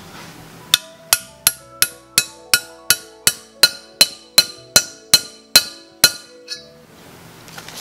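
Hammer tapping a deep-well socket on an extension to drive a valve stem seal down onto the valve guide of an LS cylinder head: a steady run of about sixteen sharp metal taps, roughly three a second, each with a brief ringing.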